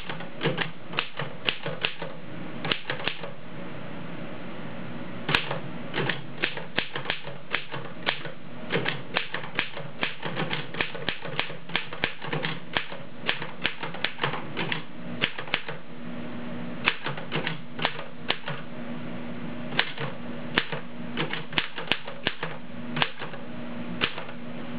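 1915 Royal No. 10 manual typewriter being typed on: a long run of sharp key strikes at an uneven pace, with a short pause about four seconds in.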